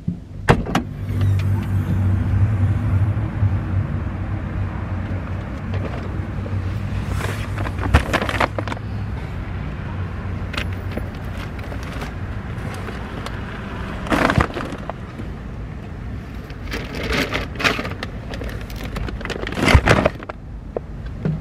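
Grocery bags being loaded from a shopping cart into a vehicle's cargo area: several thumps and rustles as bags are set down on the rubber cargo mat, over a steady low vehicle hum.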